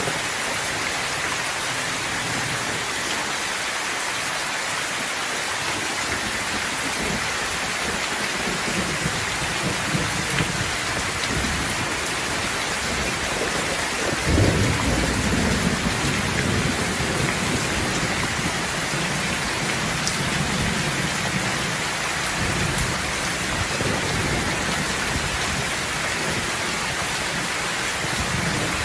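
Steady heavy rain, with a roll of thunder that rumbles up about halfway through and fades over several seconds.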